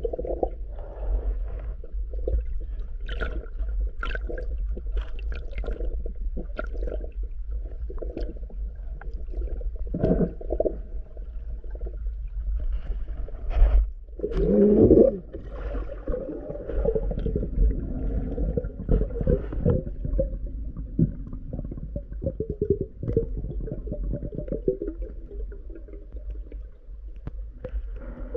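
Underwater sound picked up by a diver's camera in its housing: a steady low rumble with scattered muffled clicks and knocks. About fourteen seconds in there is a louder burst of splashing and gurgling as the diver reaches the surface.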